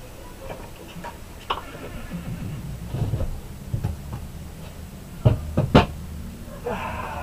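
Scattered knocks and clunks, with two sharp ones about half a second apart past the middle, over a low steady hum.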